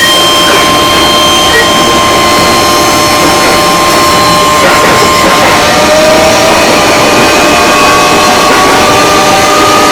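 JR 205 series electric commuter train running, heard on board: a steady, loud running noise with high whining tones from the drive equipment, one of them slowly rising in pitch in the second half as the train gathers speed. The uploader finds this whine unusual for the train and wonders whether its equipment has been replaced.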